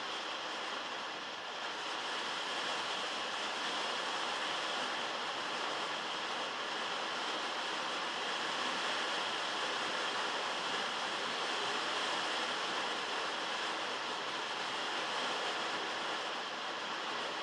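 Heavy rain drumming on a metal roof, heard from inside a shed: a steady dense hiss of drops, dipping slightly about a second in.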